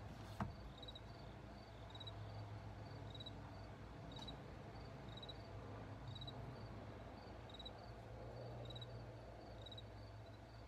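Crickets chirping: short chirps of three or four quick pulses, repeating evenly about once or twice a second, over a steady low hum. One short knock about half a second in.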